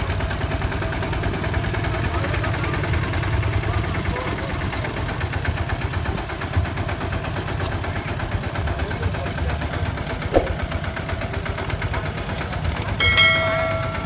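Two-wheel walking tractor's single-cylinder diesel engine idling steadily with a low, even chug. A short ringing chime sounds near the end.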